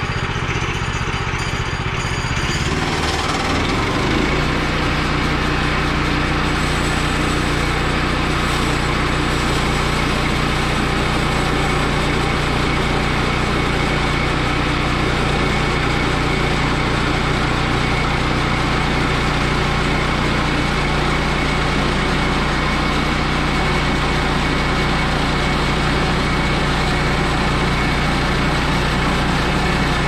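Woodland Mills HM122 bandsaw mill running, its small gasoline engine speeding up about three seconds in and then running steadily as the band blade is pushed through a short log.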